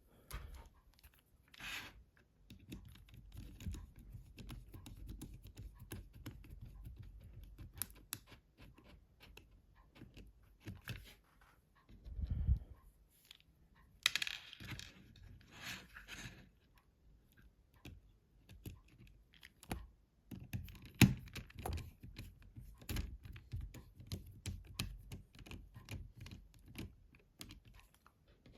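Small plastic clicks, taps and scrapes of Nokia 7210 housing parts being handled and fitted together by hand. There is a dull thump about twelve seconds in and a scratchy rustle a couple of seconds later.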